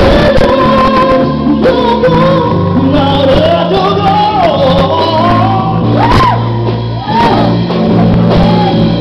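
Loud amplified live band music with a sung melody over steady bass notes.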